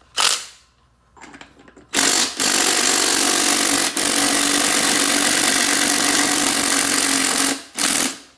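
Impact driver hammering on a socket to undo the nut on top of a Honda B-series transmission's gear stack: a short burst, then after a pause a long run of about six seconds with one brief break, and a final short burst.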